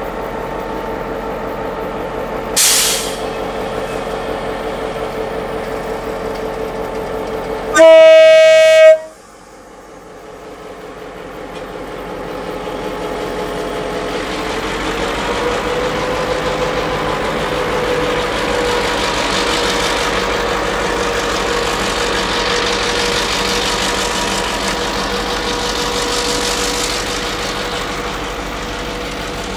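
Loaded ballast hopper wagons rolling slowly past, with a steady high tone from the wheels and a sharp clank about three seconds in. A loud diesel locomotive horn blast lasts about a second, from about eight seconds in. Then the locomotive's diesel engine grows louder as it approaches.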